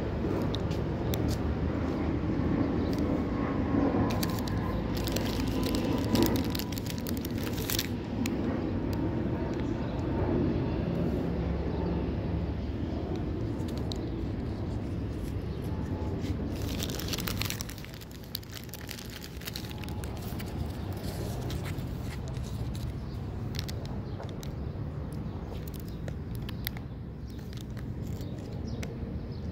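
Outdoor street ambience: a steady low rumble of traffic with scattered clicks and rustles. It drops noticeably quieter a little past halfway.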